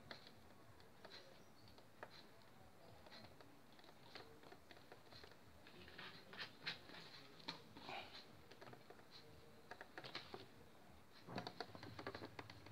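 Near silence with faint scattered clicks and small knocks from hands handling an AC vacuum pump's plastic fittings and handle, busiest in the second half.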